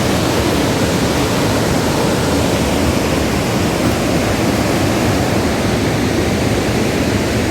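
Dassam Falls' water falling and crashing, heard close up as a loud, steady, even rush.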